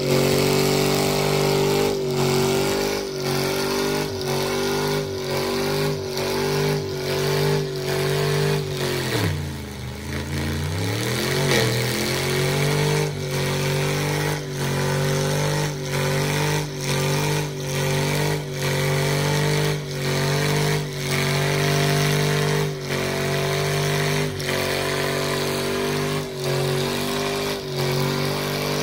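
Mega truck engines held at high revs under heavy load as the trucks pull against each other in a tug-of-war, a steady engine tone with a regular pulsing. About a third of the way in the revs drop sharply and climb back up.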